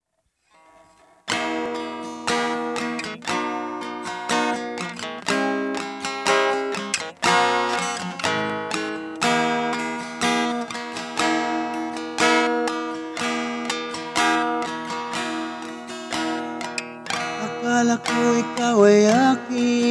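Acoustic guitar strumming chords, coming in about a second in and carrying on with steady rhythmic strums as a song's intro.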